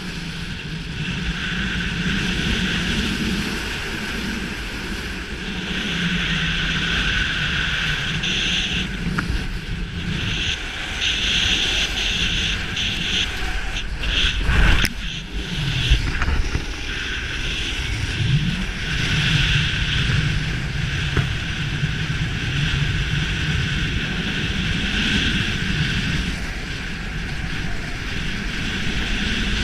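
Snowboard sliding and carving over groomed snow, the scrape of the board swelling and fading with each turn, with wind rushing over the action camera's microphone. A sharp knock about halfway through.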